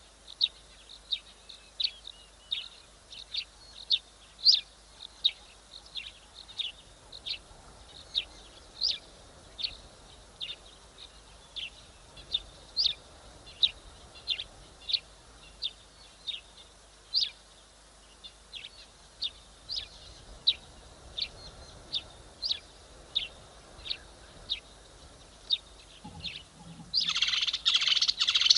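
A bird calling over and over with short, high notes, about two a second. About two seconds before the end a louder, harsher burst of sound comes in.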